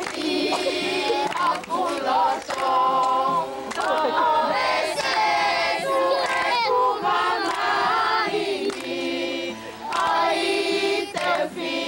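A group of children singing together, with women's voices among them.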